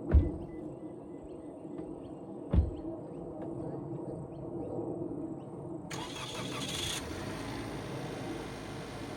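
Two dull thumps like car doors shutting, then a small kei car engine starting about six seconds in and running on.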